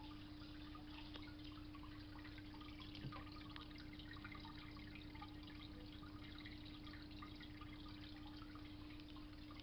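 Faint dripping and trickling of water in an aquarium over a steady low hum, with many small ticks and one soft knock about three seconds in.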